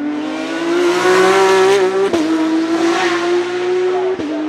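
Porsche 991.2 GT3 Cup's 4.0-litre flat-six race engine at full throttle, passing and pulling away. Its note climbs steadily, loudest about a second in. There are two crisp upshifts, each a sharp crack and drop in pitch, about two seconds in and near the end.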